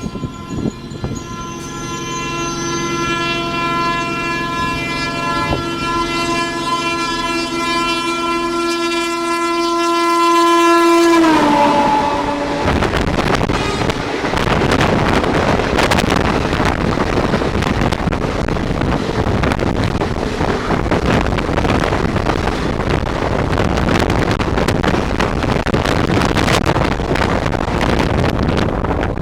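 Indian Railways locomotive horn blown in one long continuous blast as the express approaches at speed; about eleven seconds in its pitch drops as the locomotive passes and the horn stops. The horn gives way to the loud rush of the train going by, with the clickety-clack of the coaches' wheels over the rail joints.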